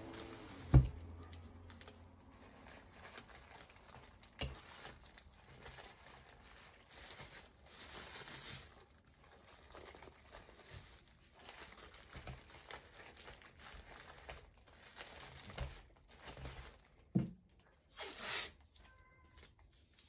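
Plastic sheeting crinkling and rustling in short bursts as hands press a plastic-wrapped resin bowl down over a mold. A sharp knock about a second in is the loudest sound, with a few softer knocks later and a longer rasp near the end.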